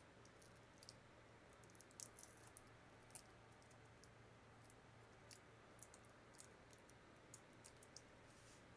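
Faint, irregular small clicks and ticks of hard plastic parts of a laptop battery pack being handled and pried apart, over a faint low hum.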